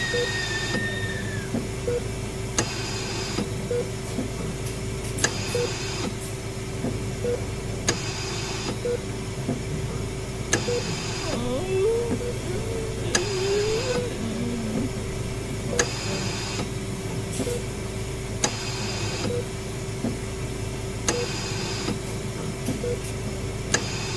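Layered horror-hospital ambience: a steady electrical hum over a low drone, a short hiss repeating about every two to two and a half seconds, small evenly spaced beeps, and faint wavering moan-like tones about halfway through.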